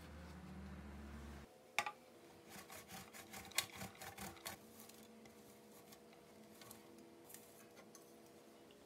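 Cheddar cheese being grated on a stainless steel box grater: a quick run of rasping strokes, about four or five a second, that turn fainter and sparser after a couple of seconds. A steady low hum cuts off about a second and a half in, and a sharp knock comes just before the grating starts.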